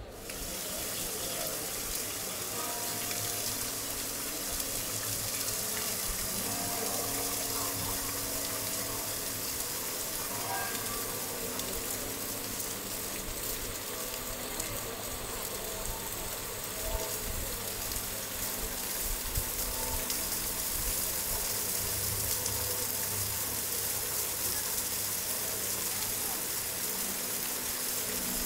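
Steady rush of falling, splashing water, with faint voices in the background.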